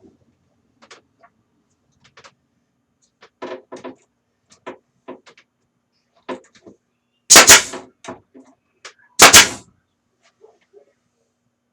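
Two loud shots from a pneumatic nail gun, about two seconds apart, tacking a glued alignment block in place, preceded by a few light knocks of wood being handled.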